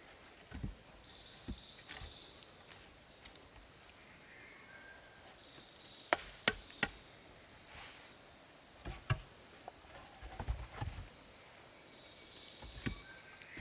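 Scattered knocks and thuds of wood being worked by hand, with three sharp cracks in quick succession about six seconds in. Faint high insect chirping runs behind.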